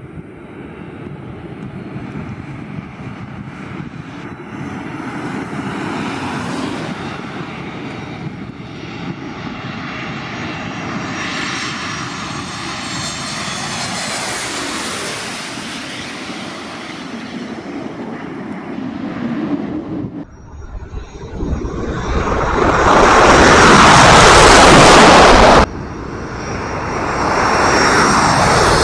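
Boeing 737 MAX 8 jet on final approach, its CFM LEAP-1B engines building with a whining hum as it flies low overhead with landing gear down. About two-thirds of the way through comes a much louder rush of jet noise that cuts off suddenly, after which the engine noise carries on lower as the aircraft moves away.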